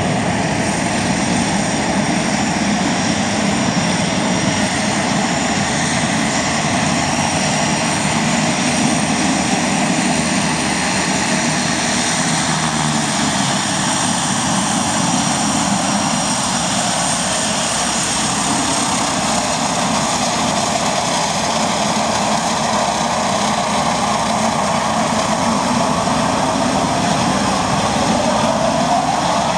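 Let L-410UVP-E9 Turbolet's twin Walter M601E turboprop engines running as the aircraft taxis: a steady propeller drone under a high turbine whine, with a tone that rises near the end as it turns away.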